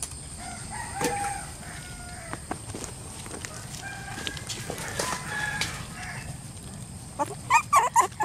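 A rooster crowing and chickens clucking, with a few sharp knocks. Near the end comes a run of short, loud calls.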